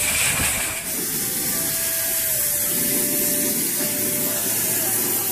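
Water running from a low foot-washing tap and splashing onto feet and a metal drain grate: a steady hiss.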